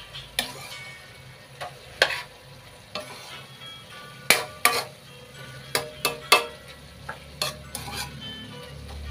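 A spatula stirs and scrapes bamboo shoots simmering in coconut milk in a pan. About a dozen sharp, irregular clicks of the spatula on the pan sound over a steady sizzle. The dish is just done cooking.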